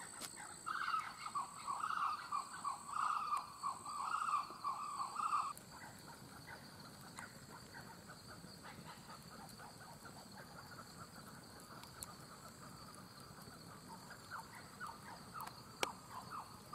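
Night bush chorus: a frog calls in a quick series, two or three calls a second, for the first five seconds or so, over a steady high insect drone and a pulsing high cricket trill. After that the insects carry on with the faint crackle of a wood campfire, and there is one sharper pop near the end.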